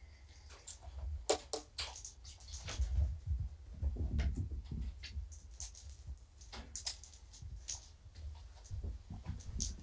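Scattered light clicks, taps and rustles at irregular times, from a person moving about on foot and kittens playing with toys, over a steady low rumble.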